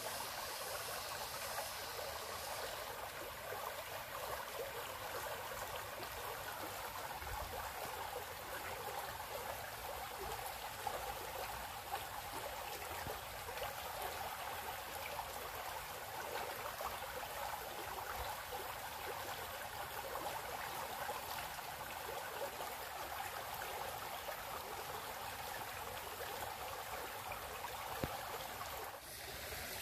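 A small, shallow stream flowing and rippling steadily.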